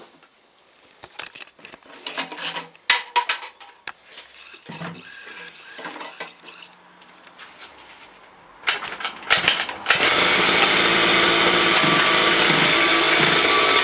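Scattered knocks and handling clatter on a 49cc mini motorbike, then its small two-stroke engine starts suddenly about ten seconds in and runs loud and steady at high revs.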